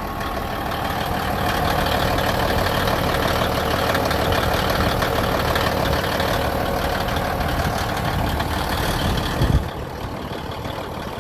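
Large diesel engine running steadily. About nine and a half seconds in there is a sharp low thump, after which the engine sound is a little quieter.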